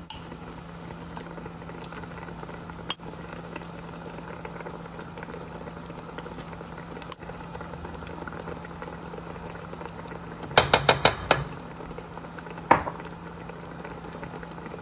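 Coconut milk bubbling and simmering in a wok, over a steady low hum. About ten seconds in, a metal spoon taps five times in quick succession, then once more a second or so later, as paste is knocked off it into the pan.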